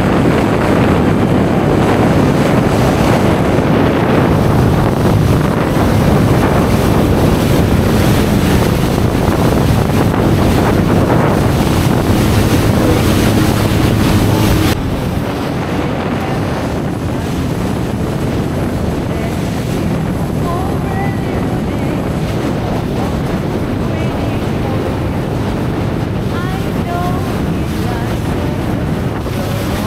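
Jet ski running at speed on the sea: engine and rushing water spray under heavy wind buffeting on the microphone. The sound steps down slightly about halfway through.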